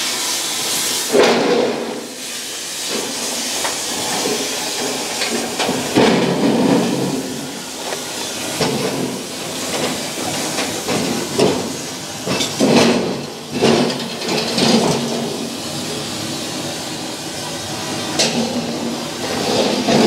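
Loud, uneven hissing that swells and fades, with a few short knocks.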